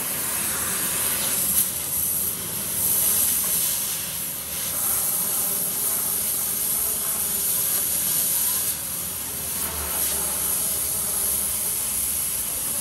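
Oxy-fuel cutting torch hissing steadily as it cuts through a steel truck axle tube, the hiss swelling and easing a few times.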